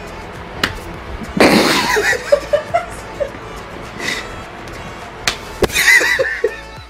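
Background music, with two bursts of laughter and a few sharp taps.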